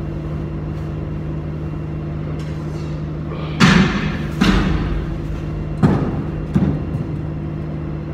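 Four heavy thumps, from about three and a half to seven seconds in, echoing off the concrete walls of an empty upright silo as men handle the silo unloader's frame. A steady low hum runs underneath.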